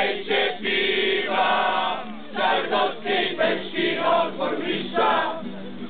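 A crowd of men and women singing a Polish drinking song together in chorus.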